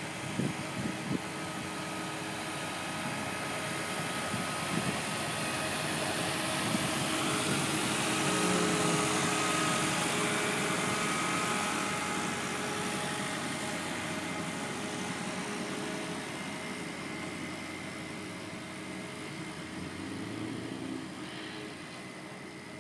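Road roller's engine running as it rolls past, growing louder to about halfway and then fading away. A few knocks in the first second.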